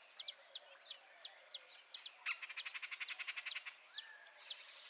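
Birds chirping: sharp, high chip notes repeated two to three times a second, with a fast buzzy trill about two seconds in that lasts about a second and a half.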